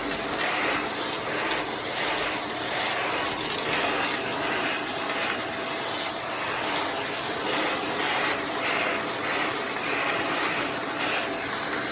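Vacuum cleaner running with a crevice tool on the hose, its suction a steady rush of air that swells and eases roughly once a second.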